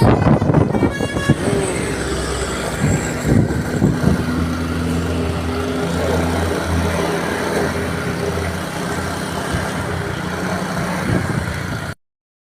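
A bus's basuri telolet horn, a multi-tone musical air horn, holding a chord of several notes and stopping about a second in; then a bus engine running steadily with traffic noise.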